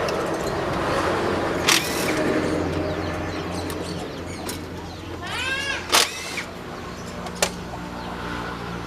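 Kubota DC70 combine harvester's diesel engine running steadily, with three sharp metallic clanks and a short run of rising-and-falling animal calls about five seconds in.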